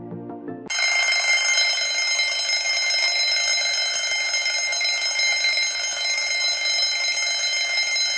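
Alarm clock ringing loudly and continuously, starting abruptly under a second in as the background music cuts off: the timer has run out.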